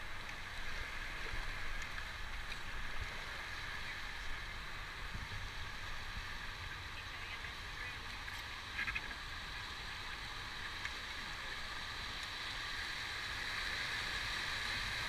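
River rapids rushing steadily around an inflatable raft, growing louder near the end as the raft reaches whitewater, with a brief clatter about nine seconds in.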